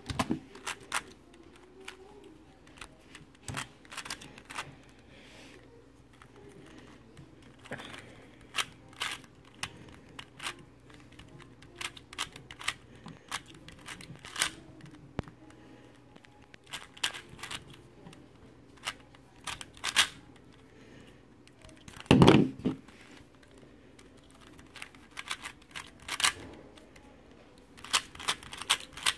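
Plastic speedcube being turned fast during a solve: irregular rapid clicking and clacking of the layers, with one louder thump about three-quarters of the way through.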